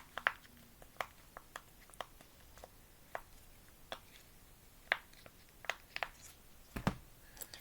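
Scattered small clicks and taps from silicone pop-it fidget toys being handled and set down, with one heavier thump near the end.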